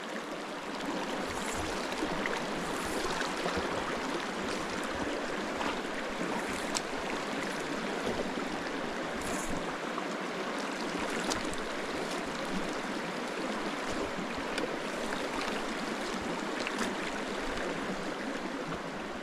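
A small creek running steadily over rocks, a constant rushing and babbling of flowing water with a few faint ticks in it.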